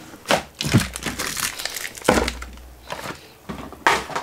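Plastic foil blind-bag wrappers crinkling and crumpling as they are gathered up by hand, a handful of short crackles a fraction of a second to half a second apart.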